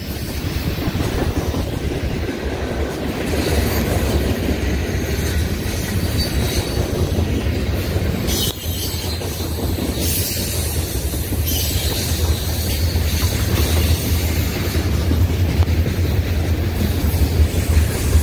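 Freight train's covered hoppers and tank cars rolling past close by: a steady rumble and clatter of steel wheels on the rails, with high-pitched wheel squeal at times partway through.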